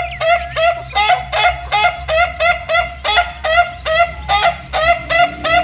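Chickens calling: a steady run of short, pitched clucks, about four to five a second.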